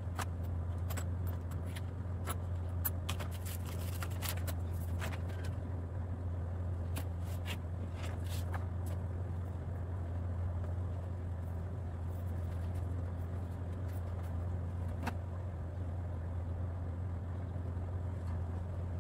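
Steady low hum, with small clicks and plastic crinkling over the first half as metal cabinet fittings are handled out of plastic bags and set down; later a few light knocks as laminated particleboard panels are lifted from their cardboard carton.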